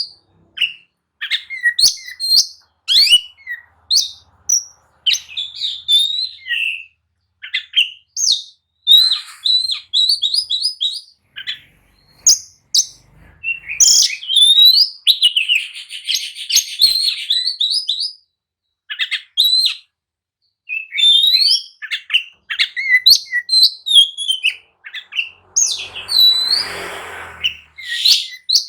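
Oriental magpie-robin singing: a loud, varied stream of short whistled phrases, rising and falling sweeps and rapid trills, with a harsher, noisier burst near the end.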